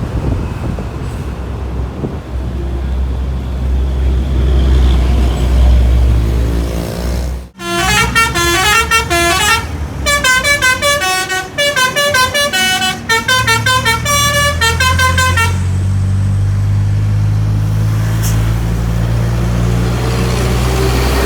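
Bus's Basuri "telolet" multi-tone air horn playing a quick stepping tune of short notes, starting about eight seconds in and lasting some seven seconds. Under it, the low running of the bus's diesel engine, which rises slowly in pitch near the end.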